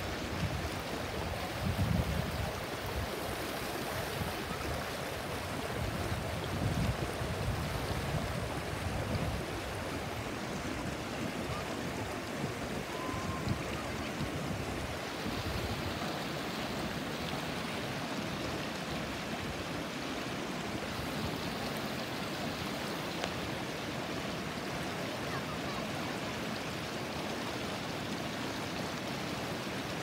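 Shallow rocky mountain stream rushing over boulders and stones in small rapids: a steady, even rush of water. Low rumbling gusts come and go during the first ten seconds or so.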